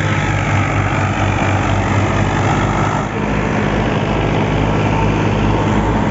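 Old Fiat 480 tractor's diesel engine running steadily under load, driving a wheat thresher through its PTO shaft. The thresher's drum adds a dense, rushing mechanical noise over the engine's low drone.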